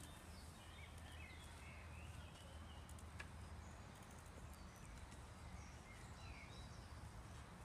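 Quiet outdoor ambience: a low steady rumble with faint, scattered bird chirps and a single small click about three seconds in.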